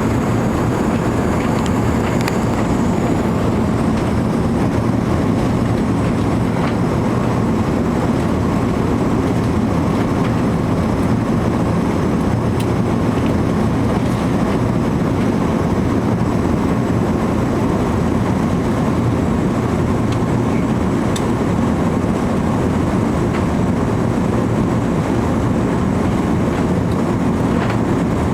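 Steady, loud rumble and roar of an Airbus A380 heard inside the passenger cabin during take-off, with a few faint clicks and rattles from the cabin.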